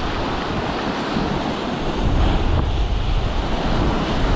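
Strong wind buffeting the microphone, with the wash of waves breaking, a loud, gusty rumble.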